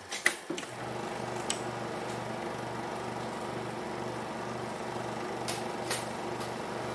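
16mm film projector switched on and running: a few clicks, then from about a second in a steady mechanical whir with a low hum that pulses about twice a second.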